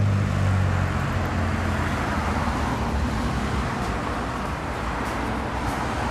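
Road traffic: cars driving past with steady tyre and engine noise, a vehicle's low engine hum loudest in the first second and then fading.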